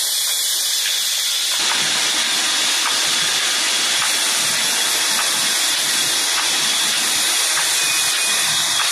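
Belt-driven sawmill machinery running, a band saw and its long flat drive belt and pulley, giving a steady loud hissing whir. About a second and a half in, the sound shifts and a lower rumble fills in under the hiss.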